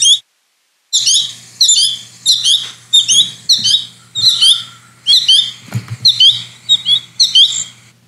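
Juvenile American goldfinches giving their 'chickpea' call: short, high groups of a few quick notes repeated over and over, about every two-thirds of a second, after a brief break near the start. This constant calling from fledglings and juveniles is a typical late-summer sound.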